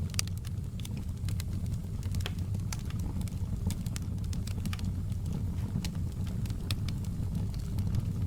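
Wood fire in a fireplace crackling: frequent, irregular sharp pops and snaps over a steady low rumble.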